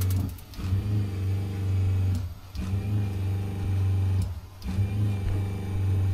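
A small electric motor hums low and steady, dropping out briefly about every two seconds, as a 12-volt propane tankless water heater is started with the hot water flowing.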